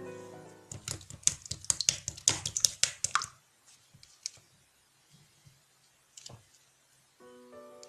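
Slime being squeezed and pressed by hand, giving a quick run of sharp, crackly clicking pops for about two and a half seconds, then a few scattered pops.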